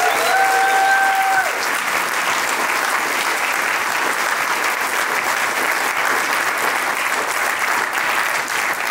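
Audience applauding steadily. In the first second and a half, a single held voice call rises above the clapping.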